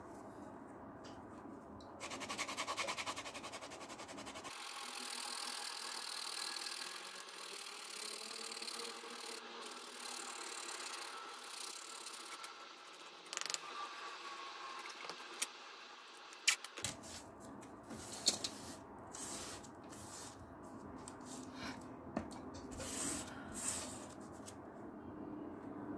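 Scratchy rubbing of an abrasive being worked over the edge of a leather panel, with a few sharp clicks about halfway through.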